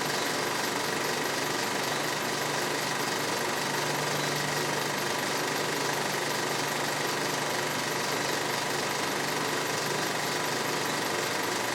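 Vintage film projector running: a steady, fast mechanical clatter from the film transport over a constant hum.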